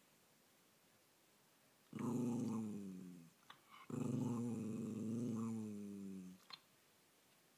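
Bolognese dog 'singing' for a treat: two long, low, moaning howls about two seconds apart, the second longer, each sliding down in pitch as it fades. It is begging for its favourite treat sticks.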